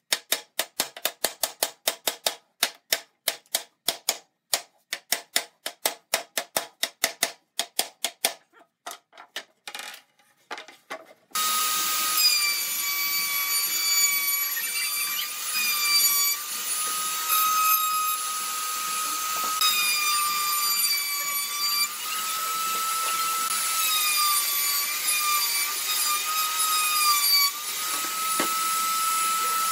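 Quick hammer blows on wood, three or four a second, thinning out over the first ten seconds. About eleven seconds in, an electric power tool starts abruptly and runs steadily, its motor's high whine dipping in pitch now and then.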